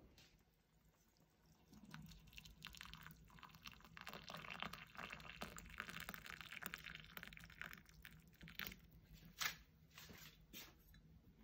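Water poured from a kettle into a glass measuring cup: a faint, steady splashing pour from about two seconds in until about eight seconds. After it come a few light clicks and one sharper knock.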